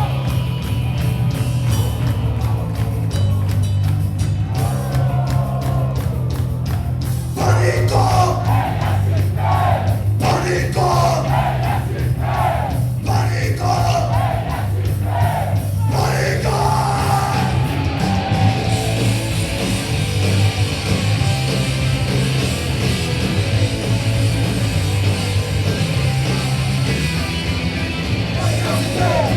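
Punk rock song played as music, with a repeating bass line. Yelled, shouted vocals come in for several seconds in the middle.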